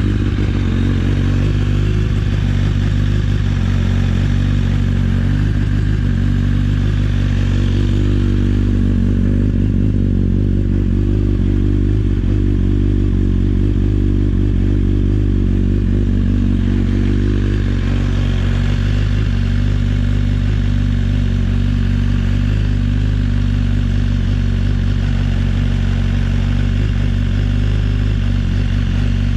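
BMW S 1000-series inline-four engine idling steadily.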